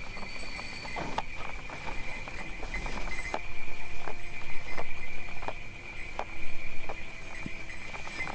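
Horse hooves clip-clopping unevenly under a steady jingle of sleigh bells, as a horse-drawn sleigh moves along.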